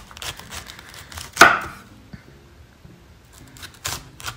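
Chef's knife slicing down through a raw cauliflower head on a wooden cutting board, cutting it into thick steaks. It makes a string of short crisp crunches, with the loudest and sharpest about a second and a half in and a few more near the end.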